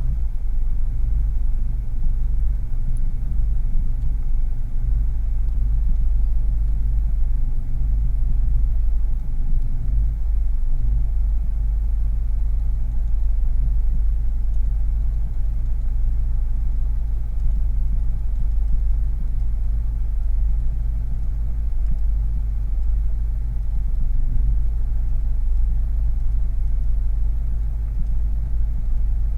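Car engine idling steadily, heard from inside the cabin: an even low rumble.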